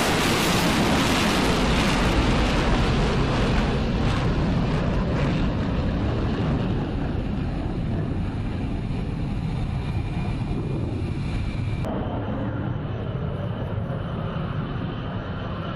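F-22 Raptor's twin jet engines at takeoff power, the roar loudest at the start and fading, losing its hiss, as the jet climbs away. About twelve seconds in the sound cuts suddenly to a quieter steady rumble with a faint whine.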